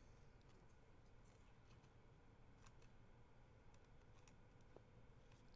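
Near silence: room tone with a handful of faint, scattered clicks.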